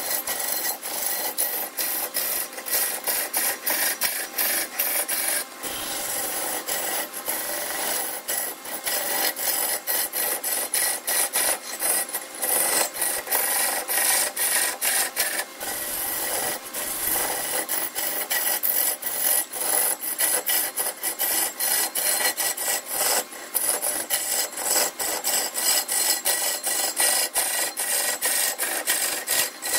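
A hand tool scraping wood in rapid, uneven strokes, several a second, stopping briefly twice.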